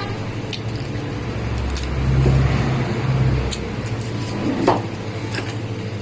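Steady low machine hum that swells louder for about two seconds in the middle, with a few sharp knocks of a knife chopping octopus legs on a plastic cutting board.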